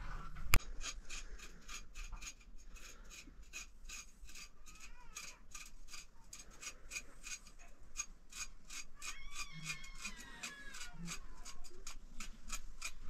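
A kitchen knife scraping the scales off a fish, in quick even strokes about three a second, after one sharp knock about half a second in. A cat meows a few times over the scraping about ten seconds in.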